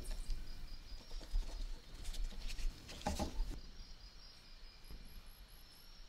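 Pliers turning a small rusty nut off a screw on a cast iron coin bank: small metal clicks and scrapes, with a louder scrape about three seconds in.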